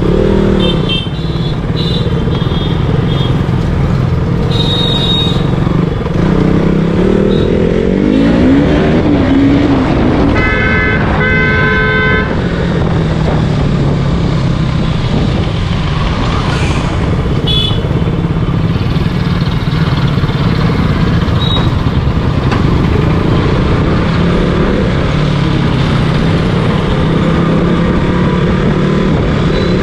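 Motorcycle engine running under way in town traffic, its note rising and falling a few times. A vehicle horn honks twice in quick succession about ten seconds in.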